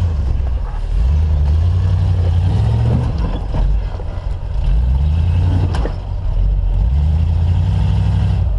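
Lifted off-road 4x4's engine revving up and easing off in repeated surges as it crawls over a rock pile, with a couple of sharp knocks along the way.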